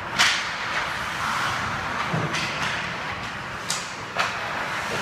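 Ice hockey play on the rink: skate blades scraping the ice under a steady hiss, with sharp clacks of sticks and puck. The loudest is about a quarter second in, with others about halfway through and twice near the end.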